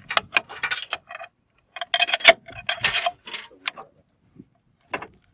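Metal clicks and clacks of a helicopter machine gun's action being worked by hand: quick clusters in the first second and again from about two to four seconds in, then one last sharp click near the end. The gun is being checked with headspace and timing gauges, the firing pin dropping on the go gauge.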